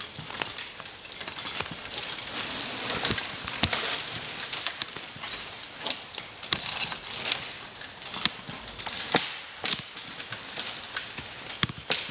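Irregular crackling with many sharp cracks and snaps: the oak's roots and wood fibres giving way as the winched tree tips over.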